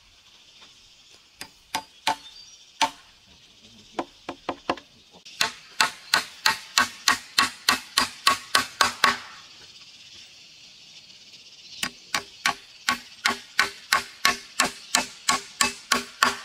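Hammer driving a nail into a wooden plank on a post: a few scattered taps, then two quick runs of steady blows, about three or four a second, with a pause of a couple of seconds between them.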